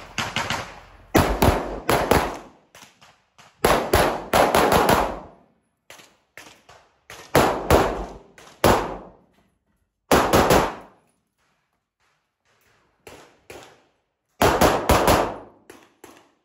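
Handgun shots fired in quick strings of two to four, with short pauses between strings, each crack echoing under a metal-roofed shooting bay.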